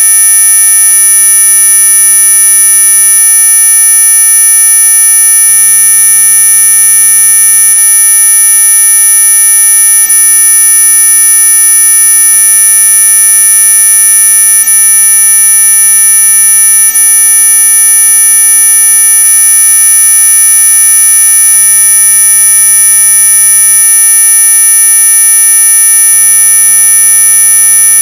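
Anti-mosquito repellent sound effect: a loud, unchanging electronic drone of many steady high-pitched tones sounding together, like a buzzer that never stops. The pitches run from a low hum up to a thin whistle near the top of hearing, so much of it is plainly audible rather than ultrasonic.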